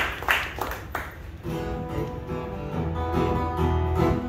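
Clapping fades out over the first second. Then a steel-string acoustic guitar begins playing the intro to a song.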